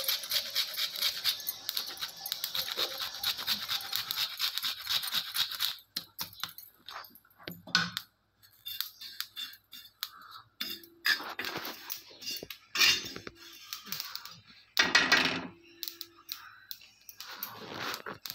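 Sesame seeds crackling and popping as they dry-roast on a hot tawa: a dense, fast crackle that dies away about six seconds in. After that a steel spoon stirs the seeds and grated coconut, scraping and clinking on the pan in short strokes.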